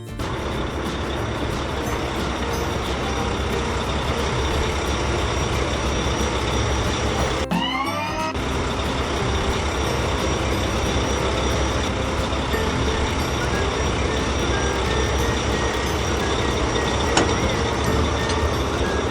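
Cartoon sound effect of a heavy truck engine running steadily, a deep rumble with dense noise over it. About seven and a half seconds in it breaks briefly for a short run of rising glides in pitch, then carries on.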